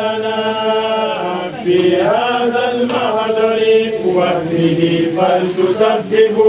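A voice chanting an Arabic Sufi praise poem in long, drawn-out notes that slide up and down in pitch, with a short pause about one and a half seconds in.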